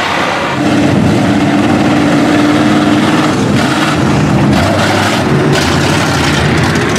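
Engine of a lifted mud truck running loudly. It picks up about half a second in, holds a steady pitch for a few seconds, then runs on rougher.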